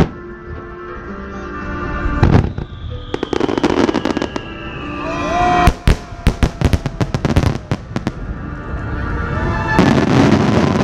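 Aerial firework shells bursting with sharp bangs, the loudest about six seconds in, followed by runs of rapid crackling, over background music.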